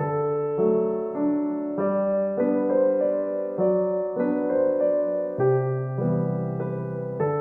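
Gentle solo piano music, a slow melody over sustained bass notes.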